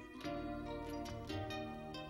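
Background music played on plucked strings, a run of notes that each start sharply and ring on.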